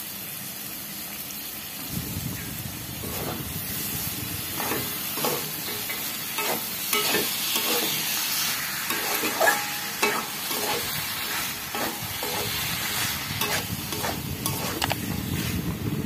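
Thin-cut potatoes sizzling as they fry in oil and cooked spice masala in a metal karahi, with a metal spoon scraping and knocking against the pan as they are stirred and tossed. The stirring strokes start about two seconds in and come repeatedly.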